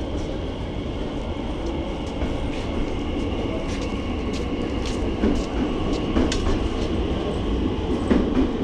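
Electric train running at a station: a steady low rumble with a faint high whine and scattered sharp rail clicks, growing a little louder about halfway through.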